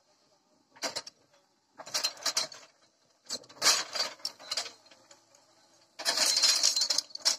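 Four bursts of scratchy rubbing noise from fingers handling the recording phone, the last and loudest starting about six seconds in.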